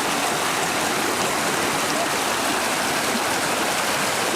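Flooded creek rushing: a steady, full roar of fast-flowing floodwater.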